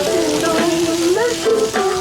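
Music playing, with a melody that glides between held notes.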